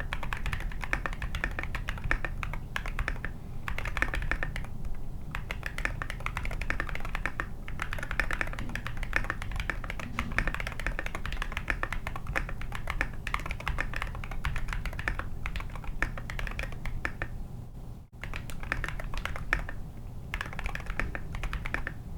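Continuous fast typing on a mechanical keyboard fitted with Glorious Panda tactile switches and SA-profile keycaps in a foam-filled case: a dense run of keystroke clacks, with a brief break about three quarters of the way through.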